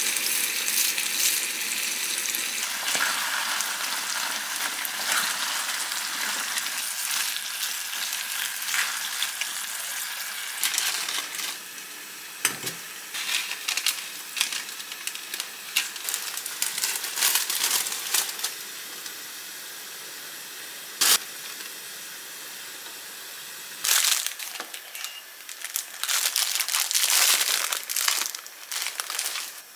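Food sizzling in a frying pan, a steady hiss for about the first ten seconds. After that it is quieter, with scattered sharp clicks and short bursts of clattering and crinkling.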